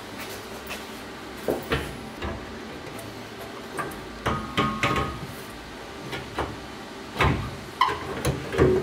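Scattered knocks and clanks as a custom-built aluminum radiator is handled and set into place against the car's metal front end, with a few brief light clicks between them.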